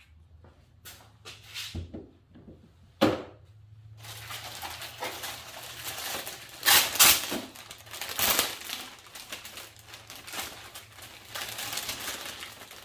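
A few sharp knocks, then a long stretch of crinkling and rustling from handling the motorcycle air filters and their packaging, loudest about seven and eight seconds in.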